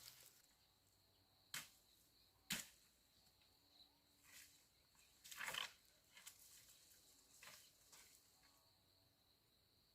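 Quiet outdoor ambience: a steady high-pitched insect drone, with a few sharp knocks and short rustles, the loudest about one and a half and two and a half seconds in and a longer rustle a little past halfway.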